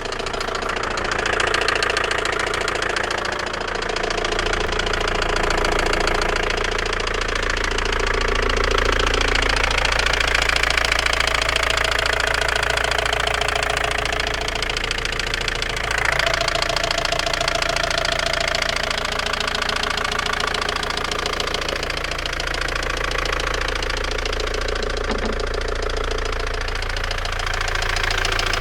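Opel Vectra B engine running with a fast, steady knocking whose cause the owner cannot make out. About halfway through there is a brief swell in level.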